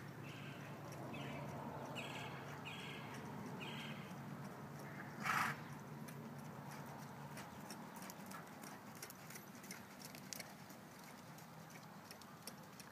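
Hoofbeats of a ridden American Quarter Horse filly on soft arena dirt: a run of soft, muffled footfalls. About five seconds in there is one short, loud puff of noise.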